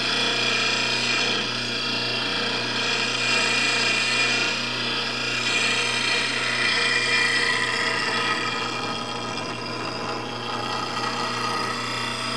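Bench grinder running with a steady hum while the steel of a bowl gouge is ground on the wheel, swept side to side in a sharpening jig for a fingernail grind. The grinding hiss grows stronger around the middle and eases off in the last few seconds.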